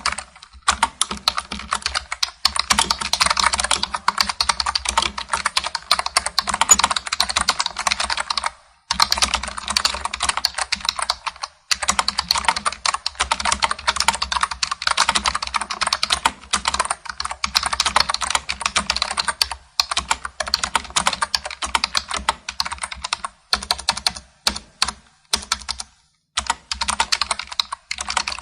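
Fast typing on a computer keyboard: dense runs of key clicks, broken by short pauses, with a stretch of slower, separate keystrokes near the end.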